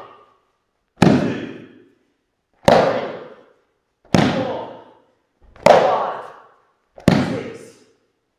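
Repeated martial-arts side breakfalls: a body slapping down onto a foam dojo mat, arm and leg beating the mat. Five heavy slaps about one and a half seconds apart, each echoing briefly in the hall.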